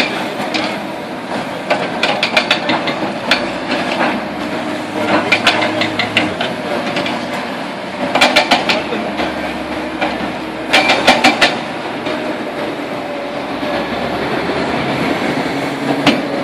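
Demolition excavator working on a concrete bridge: its engine runs steadily under load, broken four or five times by about a second of rapid, sharp clattering strikes.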